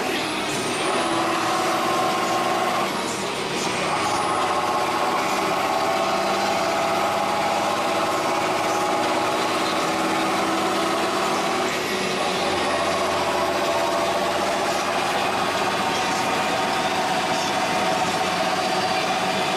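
John Deere 6630 Premium tractor engine and drivetrain running on the road, heard from inside the cab as a steady drone. Its tone shifts about three seconds in and again about twelve seconds in.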